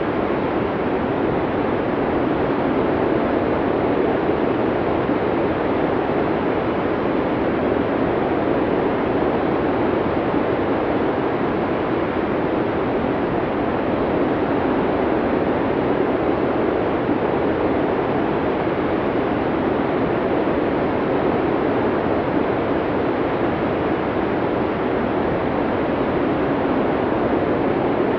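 Snowstorm wind blowing as a steady, unbroken rush, deep rather than hissy, with no gusts or separate sounds standing out.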